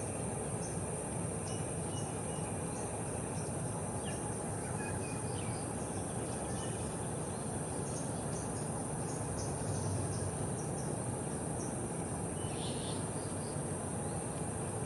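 A steady high insect drone with short, high bird chirps scattered through it, over a constant low hum of outdoor ambient noise.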